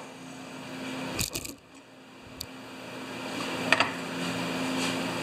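A few light knocks and clicks from tools and gear being handled, over a steady low hum.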